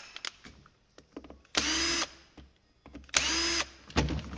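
Power drill-driver run in two short bursts, each a brief rising whine that holds steady for about half a second, unscrewing the fasteners of a Husqvarna 136 chainsaw's handlebar; a sharp knock near the end.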